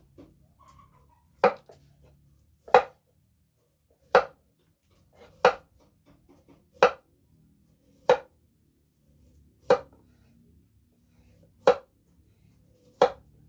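Heavy knife chops into chicken on a thick wooden chopping block: nine sharp, separate strikes about every second and a half, each a loud thud.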